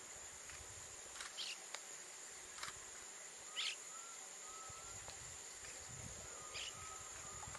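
Outdoor nature ambience: insects calling in one steady high-pitched tone, with a few short bird chirps and faint wavering whistles now and then.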